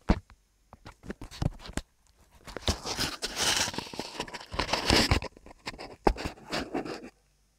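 Handling noise from a phone being gripped and moved while recording: fingers rubbing and tapping over the microphone make a run of sharp clicks, then a few seconds of dense scraping and crackling, then more clicks.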